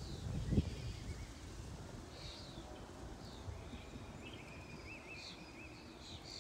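Outdoor field ambience of birds calling: short sharp chirps repeated throughout and a thin wavering trill in the middle. Under them, a low wind rumble on the microphone that gusts about half a second in.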